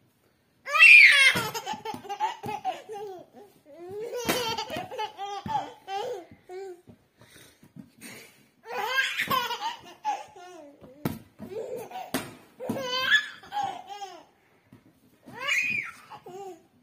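Baby laughing in several bouts. The loudest comes about a second in: a high laugh that falls in pitch.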